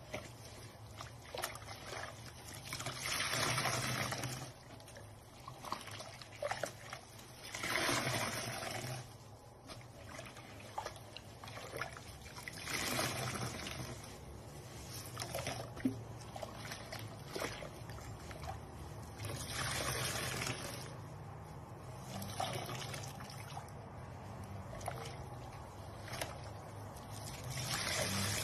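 Large tractor sponges squeezed and wrung in a sink of soapy water, with water streaming out of them and splashing back into the basin. Louder squeeze-and-pour surges come about five times, a few seconds apart, with quieter squelching and trickling between.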